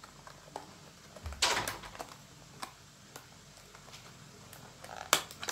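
Clicks, knocks and rustling from a small plastic case of makeup sponges being handled and opened, with a louder thump and rustle about a second and a half in and a sharp click near the end.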